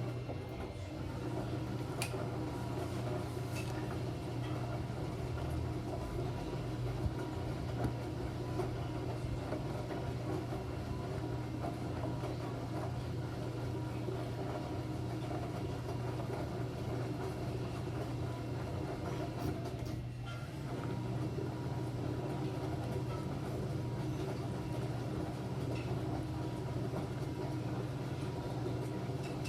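Enxuta Júnior 2 kg washing machine running with a steady motor hum, dipping briefly twice, once just after the start and again about 20 seconds in.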